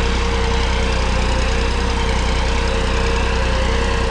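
Massey Ferguson 9500 tractor's diesel engine running steadily under load, pulling a three-bottom mouldboard plough at full depth through dry soil, with a steady tone over the engine's drone.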